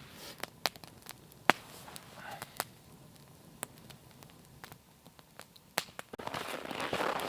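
Wood fire crackling: scattered sharp pops and snaps over a quiet background, the loudest about a second and a half in. A rustling noise builds near the end.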